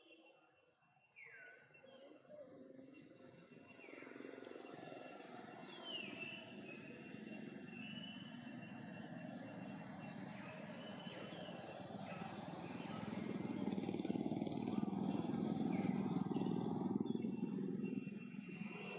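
A passing motor vehicle, its engine noise swelling over several seconds and fading near the end. A steady high insect drone and a few short, high calls falling in pitch sound beneath it.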